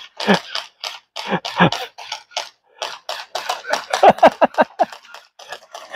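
Gel ball blasters firing: an irregular string of sharp pops, mixed with short shouts from the players.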